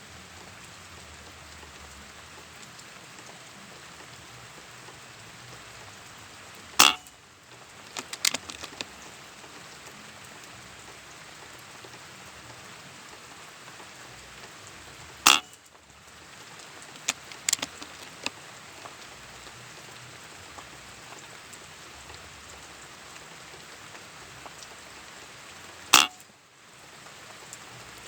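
Steady rain falling. Three loud sharp knocks come several seconds apart, with a few fainter taps between them.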